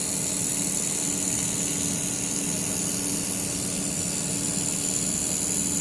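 Air-cooled handheld laser welder running: a steady machine hum with a hiss above it.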